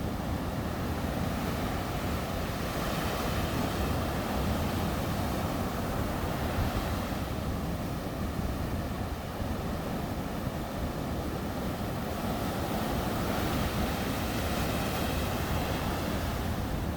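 Sea surf breaking on a beach: a continuous low roar of waves, with the hiss of foam swelling up and fading back as each wave washes in, three times over.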